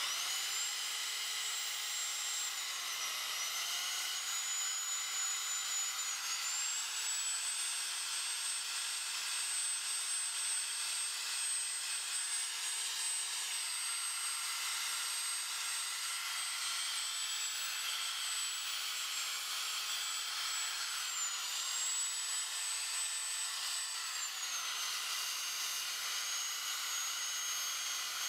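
Electric drill spinning an abrasive sanding wheel against carved wood: a steady high-pitched motor whine over the rasp of sanding, its pitch dipping briefly and recovering several times.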